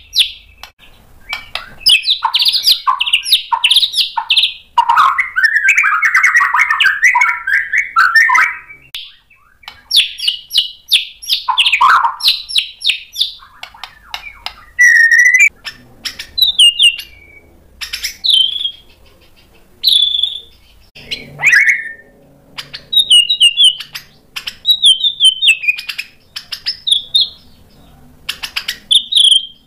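White-rumped shama in full song, loud and varied: a long run of rapid chirps and trills for the first dozen seconds, then shorter sharp whistled phrases and falling trills separated by brief pauses. The song is a string of mimicked fill-in phrases (isian).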